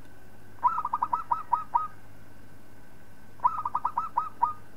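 Zebra dove (perkutut) cooing twice, each phrase a quick run of about eight short notes that spread out toward the end. A faint steady hum underlies it.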